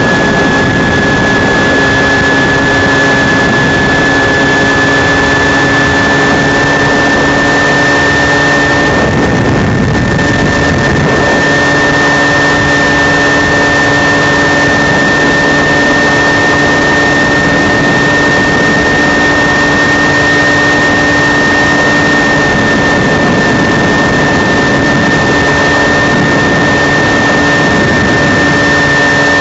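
Aircraft engine heard inside the cockpit in flight: a loud, steady drone with a high, steady whine over it. About nine seconds in, a rush of noise briefly blurs the drone for a couple of seconds.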